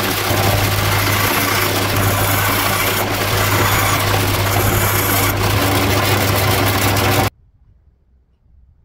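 Bandsaw running with a steady motor hum while its blade cuts through small pieces of wood. The sound cuts off abruptly about seven seconds in.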